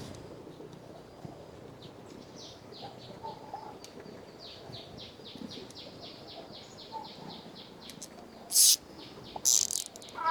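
A bird calling a rapid series of short, falling high notes, about four a second, for several seconds. Near the end come two short, loud bursts of rasping noise.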